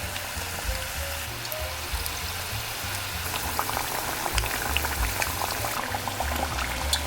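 Battered tilapia pieces frying in oil: a steady sizzle with crackles and pops that grow more frequent from about three seconds in. Background music with a low beat plays underneath.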